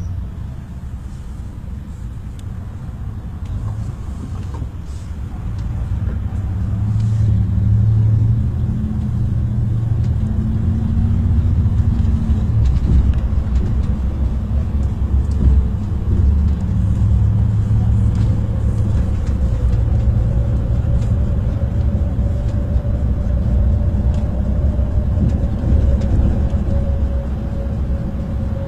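Steady low drone of engine and road noise inside a bus cruising on a highway. It grows louder about six to eight seconds in, and a faint steady whine joins in during the second half.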